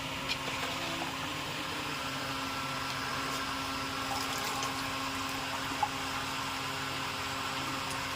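Steady mechanical hum with a constant low tone and a hiss, broken by a few faint clicks, one near the end.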